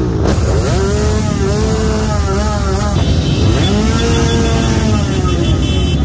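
Motorcycle engines revving hard, their pitch rising and falling back in repeated sweeps of about a second, over a steady low rumble of many idling bikes.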